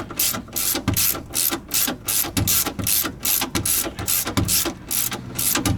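Hand ratchet wrench clicking in quick repeated strokes, about three to four bursts a second, as the lower rear shock absorber mounting bolt is run in.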